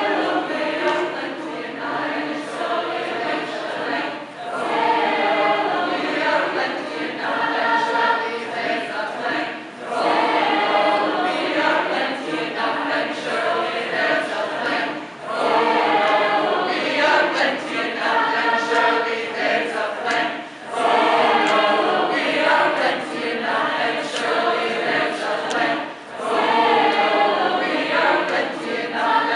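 An a cappella chorus of many voices singing together, in phrases of about five seconds with brief breaks between them.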